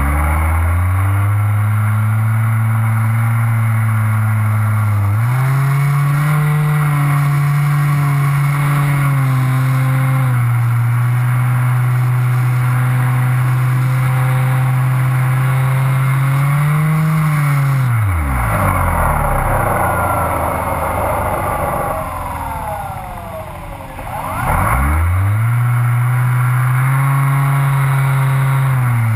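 Model airplane's motor and propeller heard from the onboard camera: a steady drone whose pitch steps up and down with the throttle. About 18 s in the pitch sinks away and the sound thins for several seconds as the throttle is cut. It then spools back up to a steady drone shortly before 25 s.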